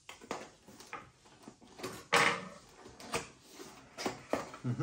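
Cardboard box being opened by hand: scattered scrapes, clicks and rustles of packaging, with one louder rasp about two seconds in.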